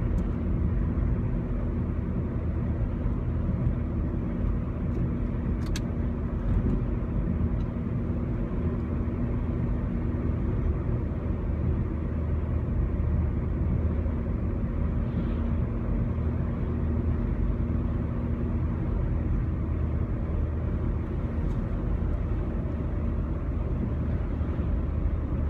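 Steady low rumble of a motor vehicle running, with a faint steady tone that fades out about ten seconds in.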